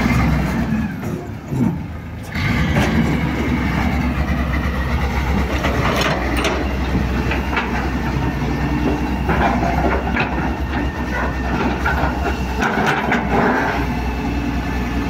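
Daewoo Solar 200W wheeled excavator's diesel engine running under load, getting louder about two seconds in as the hydraulics work, with intermittent scraping and clanks as the steel bucket digs through loose soil and stones.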